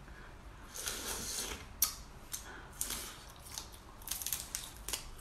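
Mantis shrimp shell being cracked and peeled apart by hand, an irregular run of sharp snaps and crunchy crackles.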